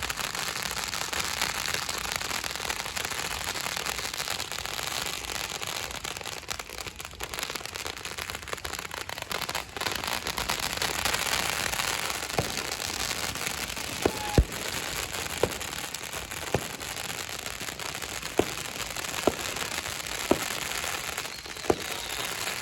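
Fireworks and firecrackers going off all around in a dense, continuous crackle. About halfway through, separate sharp bangs start popping roughly once a second above it.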